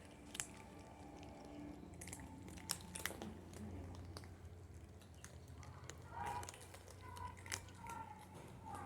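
Cats chewing dry kibble, with sharp crunches scattered irregularly among softer chewing.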